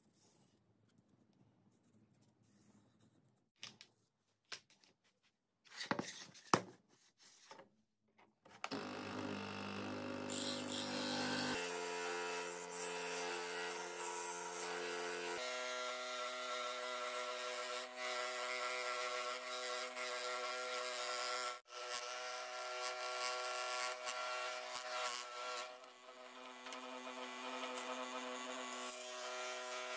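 Quiet pen scratching and a few knocks from handling the wood. About nine seconds in, an electric scroll saw starts and runs steadily, cutting a wooden block. Its pitch steps up twice in the first seconds of running.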